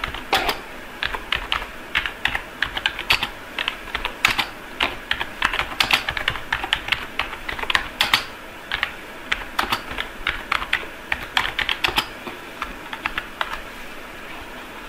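Computer keyboard keys clicking as a line of text is typed, in uneven runs of keystrokes that thin out near the end.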